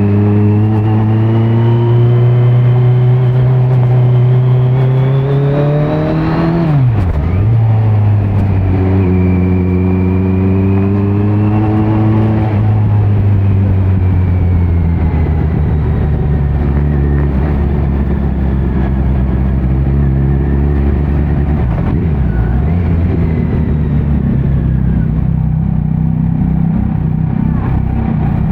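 2018 Kawasaki Z900's inline-four engine through a Leo Vince muffler with no dB killer, revving up under acceleration with sharp drops in pitch at two upshifts, about seven and twelve seconds in. After that it runs steadier at lower revs.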